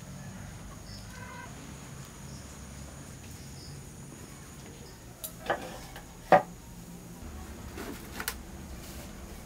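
Faint bird calls over a steady low background, broken by two sharp knocks about a second apart in the middle, the second the loudest, and a lighter double click near the end.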